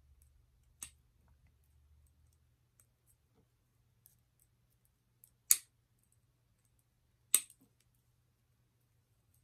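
Jewellery pliers clicking on small metal earring parts: a soft click about a second in, then two sharp clicks about two seconds apart in the second half.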